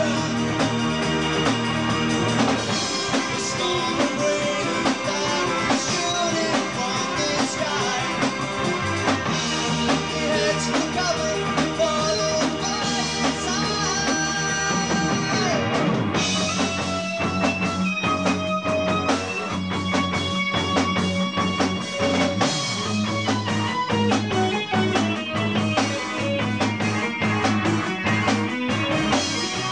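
Live progressive rock band playing, with electric guitar, bass and drums. About halfway through, the dense playing thins out to a clearer stepping melody line over a steady bass.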